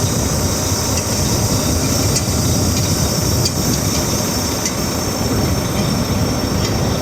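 Truck engine idling steadily with a high hiss over it while the air-brake system builds pressure.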